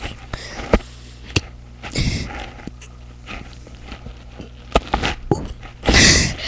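Sniffing and breathing with scattered sharp clicks, then a loud breathy rush about six seconds in.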